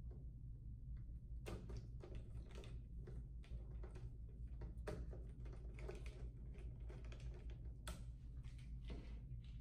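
Irregular light clicks, taps and rattles of a WhatsMiner M21S power supply's aluminium casing being handled and fitted into place, over a steady low hum.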